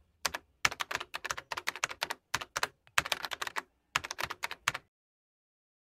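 Rapid runs of sharp clicks, like keys being typed, in short bursts with brief gaps between them, cut off abruptly near the end.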